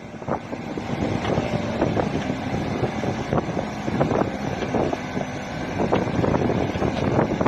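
Backhoe digging: the diesel engine runs steadily under load, with irregular clanks and knocks from the bucket and stones through the whole stretch.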